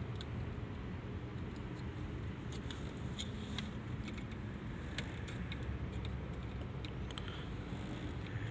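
Scattered small clicks and ticks as wires and a test light probe are handled at a car's fuse box, over a steady low rumble.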